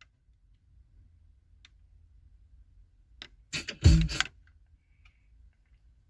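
Faint low hum, then a short cluster of sharp clicks with one dull thump about three and a half to four seconds in.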